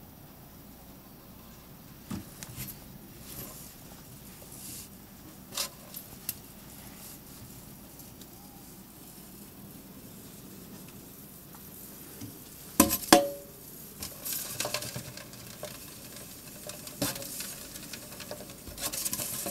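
Scattered light ticks and scratches against a stainless steel sink, busier over the last few seconds. About thirteen seconds in, two sharp knocks make the steel ring briefly.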